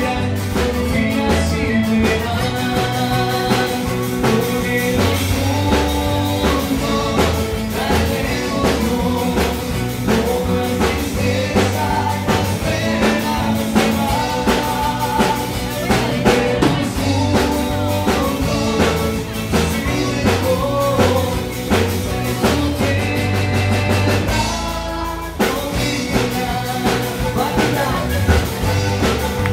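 Live Andean folk band: panpipes (zampoñas) playing the melody over a strummed charango and acoustic guitar, with a drum kit keeping a steady beat. About three-quarters of the way through the band briefly drops back, then comes in again in full.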